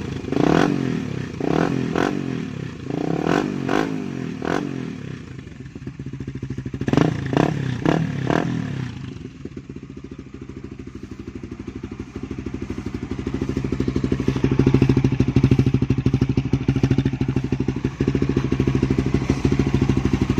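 Suzuki Raider 150 Fi motorcycle engine breathing through an aftermarket RedLeo exhaust pipe: a string of quick throttle blips over the first half, then a steady engine note that builds, is loudest a little past the middle and holds. The exhaust note is full and free of popping at low revs.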